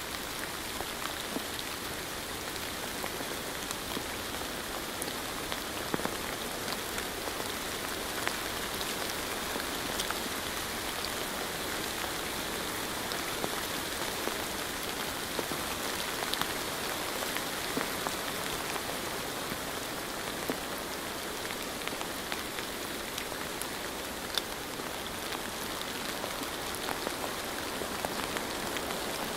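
Steady rain falling, an even hiss with many small separate drops ticking on a hard surface.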